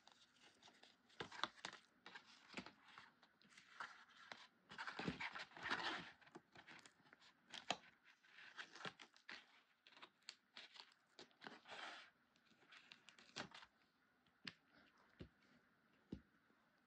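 Quiet, irregular rustling and crinkling of kraft cardstock being handled, folded and pressed together, with short sharp taps and scrapes, and the tearing sound of double-sided tape backing being peeled off.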